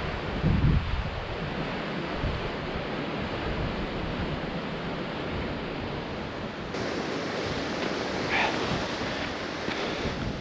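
Sea surf washing and breaking on the rocks below a cliff, a steady rushing noise, with wind gusting on the microphone in the first second or so.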